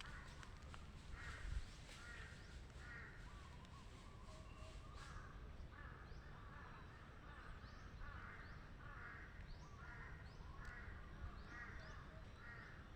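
Faint bird calls: a harsh call repeated over and over at an even pace, with short, higher rising chirps from another bird joining in the second half.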